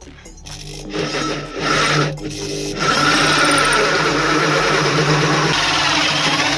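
An electric power tool's motor running under load, most likely cutting or working wood. It starts about a second in, drops out briefly after two seconds, then runs steadily and loud until just before the end.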